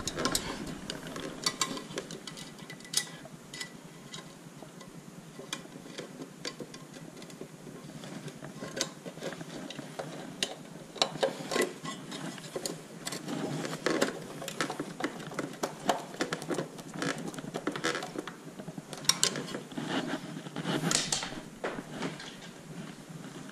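Irregular small metallic clicks and scrapes as screws are worked back into a stainless-steel hose union tap box, with a cluster of sharper clicks about three quarters of the way through.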